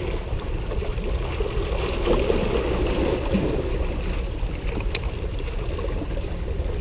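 Steady wind rumble on the microphone, with sea water washing against breakwater rocks, and a single small click about five seconds in.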